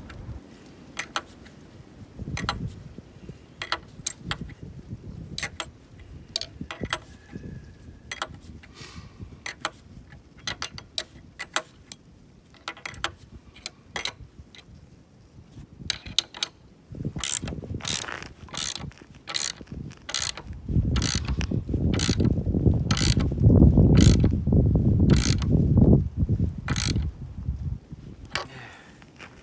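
Hand ratchet wrench clicking as a bolt is worked down, the clicks sparse at first and then coming steadily at about two a second. A loud low rumble sits under the clicks for several seconds in the second half.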